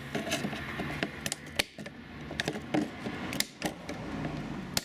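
Pruning shears snipping at the edge of a plastic under-bumper cover: a few sharp snaps as the blades close, with plastic rustling and creaking between the cuts.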